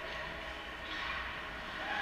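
Steady ice-rink ambience: a constant hum and hiss that fills the arena, with play at the far end of the ice.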